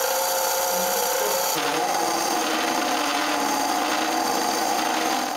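Wood lathe running while a 20 mm carbide-tipped cup boring bit, Forstner-type, in the tailstock drill chuck bores into the end grain of the spinning wooden blank. The steady cutting and rubbing of the bit in the wood sits over the lathe motor's hum. This is the last, smallest bit of a stepped drilling, taken to the full depth of a blind hole.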